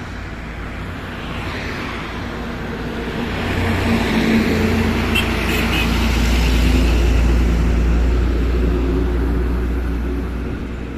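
Heavily loaded Tata tractor-trailer pulling slowly in first gear as it passes close by: its diesel engine rumbles low and steady, with tyre noise, swelling to a peak midway and easing off as it moves away.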